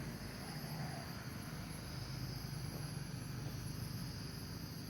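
Insects droning steadily at a high pitch, with a low rumble underneath.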